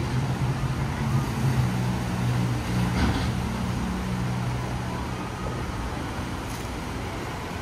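Water rushing steadily down a water slide's run-out, with a low, steady hum underneath.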